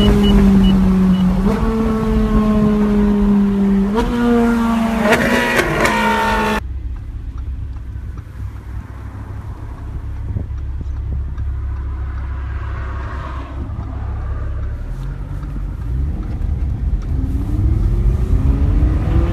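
Ferrari engine heard from inside the cabin at speed, its note sinking slowly and stepping up in pitch twice. It then cuts suddenly to another car's low cabin rumble, and that car's engine note rises near the end as it accelerates.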